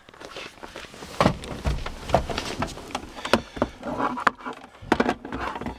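Scattered clicks, knocks and rustles of a hand-held plastic OBD-II code scanner and its cable being handled and moved.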